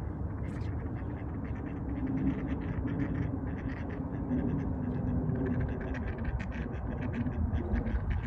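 Ducks quacking at a lake over a steady low rumble, with many short quick calls from about two seconds in.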